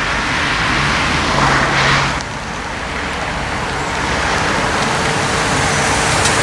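A car running, a steady noisy rumble that drops a little about two seconds in.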